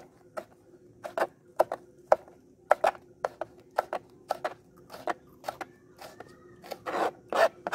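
Kitchen knife slicing green chillies on a plastic cutting board: irregular sharp taps of the blade striking the board, about two to three a second.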